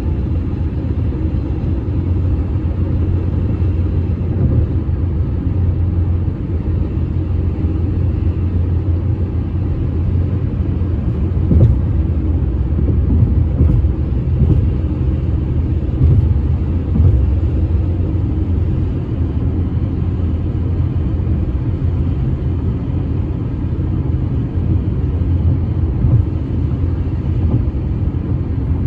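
Steady low road rumble of a car driving, tyre and engine noise with no gaps, and a few brief louder bumps around the middle.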